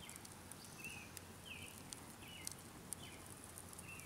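Quiet outdoor ambience with a faint short high chirp, from a small animal, repeating every half second or so, and a few faint light clicks.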